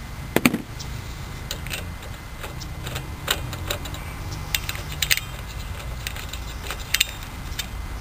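A hand nut driver clinking against the bolts and steel cover plate of a small single-cylinder Kohler engine as the plate's 1/4-inch bolts are worked loose. Irregular sharp metallic clicks sound over a low steady hum.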